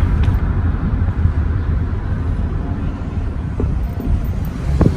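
A car driving: a steady low rumble of engine and road noise, with a faint click near the start and another near the end.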